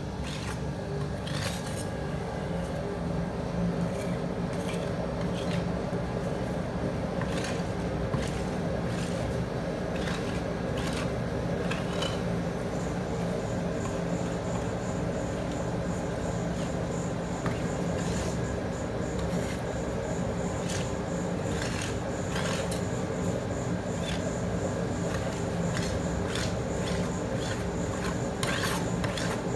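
Metal spatulas scraping and tapping over a frozen sheet of ice cream on the steel plate of a rolled-ice-cream cold plate, in short irregular strokes. A steady hum from the machine runs underneath.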